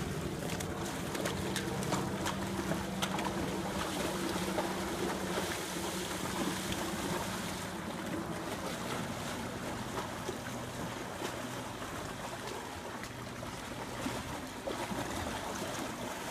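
Horses wading through a shallow river, the water splashing and sloshing around their legs over a steady rushing noise.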